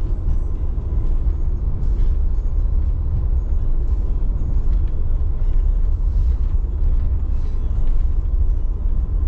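Steady low road and tyre rumble inside the cabin of a moving Tesla Model 3.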